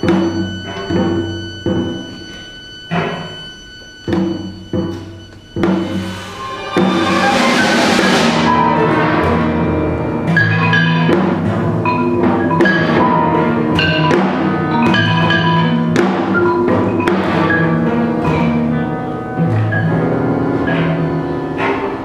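Contemporary chamber-orchestra music with janggu (Korean hourglass drum): separate sharp drum strikes with short pauses between them for about the first six seconds, then the full ensemble of strings and winds comes in loud and plays on, with further percussive accents.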